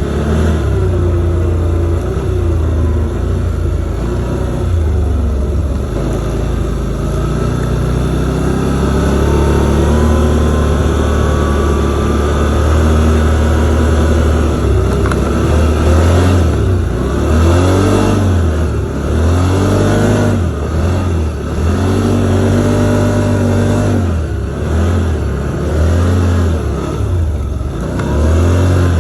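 V-twin ATV engine running under way while towing loaded sleds. It runs steadily at first, then over the second half the pitch repeatedly rises and falls as the throttle is worked up and down.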